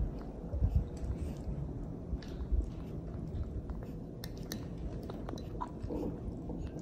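Baby monkey chewing a mouthful of food, with small, irregular wet clicks of its mouth. A couple of soft low bumps come about a second in and again past two seconds.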